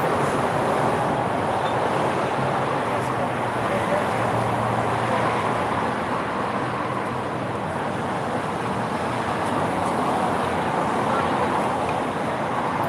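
Steady city traffic noise, an even background hum with no distinct events.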